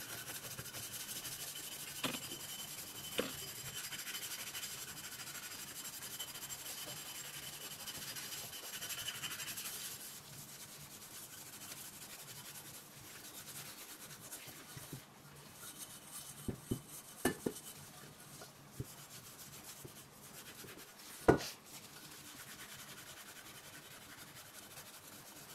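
A hard scraper scrubbing degreaser-softened grease and burnt-on carbon off the bottom of an upturned stainless-steel pot: a steady faint rubbing, louder for the first ten seconds or so. A few short knocks come in between, the loudest about two-thirds of the way through.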